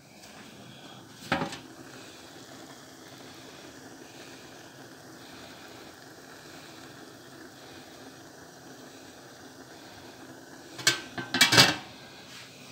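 Metal pot lid clattering onto a large cooking pot, several quick loud hits near the end as it settles on the rim. There is a single metal knock about a second in, and a steady faint hiss from the cooking pot underneath.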